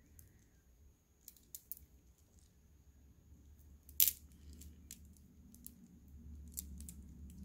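Polished moss agate stone beads on a strand clicking lightly against each other as they are handled: a few faint scattered clicks, with one sharper click about four seconds in.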